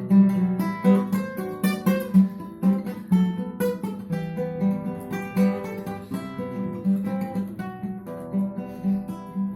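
Acoustic guitar playing an instrumental passage between sung verses, a steady run of plucked notes and strummed chords.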